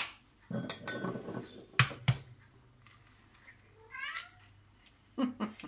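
Eggshell cracked against the rim of a glass measuring jug: two sharp taps about two seconds in, and more taps near the end. About four seconds in, a short high call that falls in pitch.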